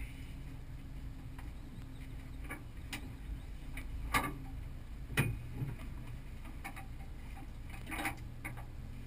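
Scattered clicks and knocks as a driver settles into a bucket seat and handles the harness and cabin controls, over a steady low hum.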